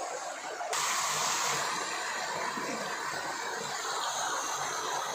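Water falling like heavy rain from a round cooling tower's fill into its basin: a steady rushing hiss. It jumps louder and brighter about a second in, then holds steady.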